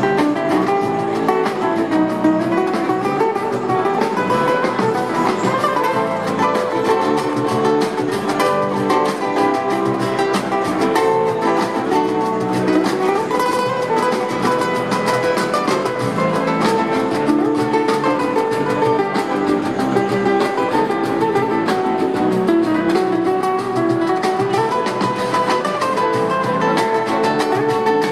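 Live rumba flamenco band playing: a steel-free nylon-string acoustic guitar leads over an electric bass and cajón, with a steady, unbroken groove.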